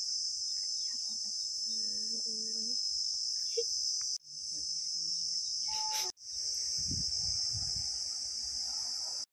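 Steady, high-pitched chorus of crickets shrilling without pause, cutting off abruptly for a moment twice.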